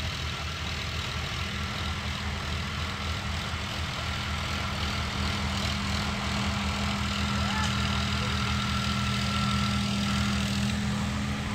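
Sonalika tractor's diesel engine running steadily under load as it pulls a tilling implement through sandy soil, growing louder as it comes closer.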